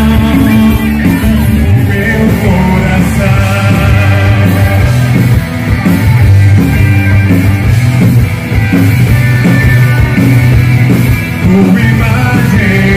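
Rock band playing loud with a singer's voice over the instruments and a steady drum beat.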